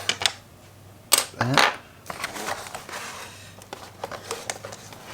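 Plastic packaging and small kit parts being handled out of a box: irregular light clicks and taps with soft rustling.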